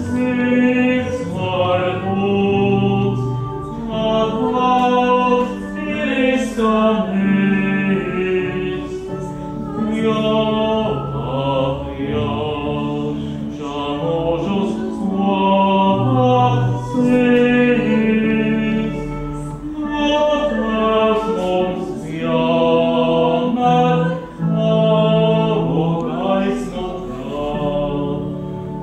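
A congregation singing a slow hymn together, the voices holding long notes.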